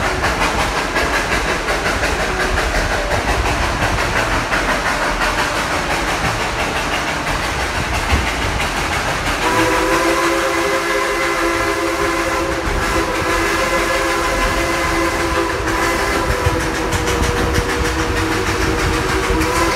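Train cars rattling and clacking along narrow-gauge track behind steam locomotive No. 190. About halfway through, the engine's Lunkenheimer chime steam whistle blows one long blast of several notes at once, held for about ten seconds.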